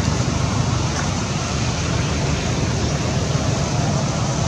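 Steady rushing background noise with no distinct events, heaviest in the low range.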